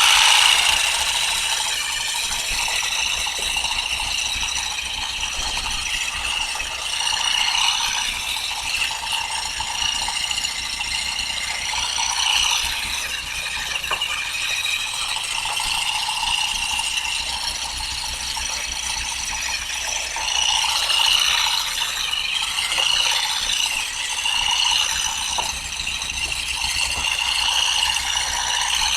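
Powered olive-harvesting tool running continuously with a mechanical rattle, its loudness swelling and dipping as it works through the branches.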